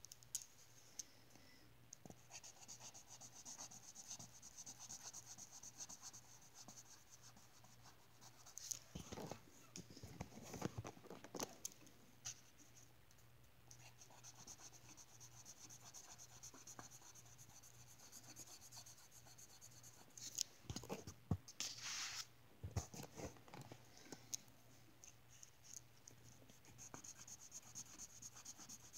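Green marker scratching faintly on colouring-book paper in repeated strokes, with a few louder knocks and rubs about a third of the way in and again about two thirds in. A faint steady low hum runs underneath.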